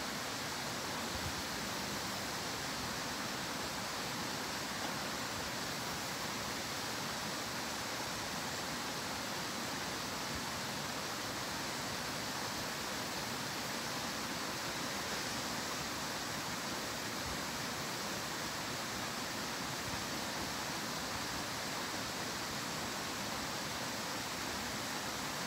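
Steady rushing of a small stream, an even, unbroken wash of water noise.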